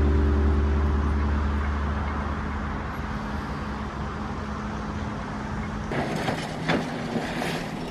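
A guitar chord rings out and fades away over the first few seconds, leaving steady outdoor background noise with a few short knocks near the end.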